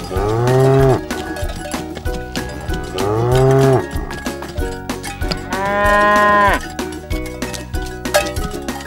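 A cow mooing three times, each moo about a second long, the third one higher-pitched, over a steady clicking beat.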